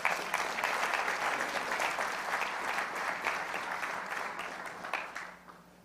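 Audience applauding, many people clapping together; the applause thins out and dies away near the end.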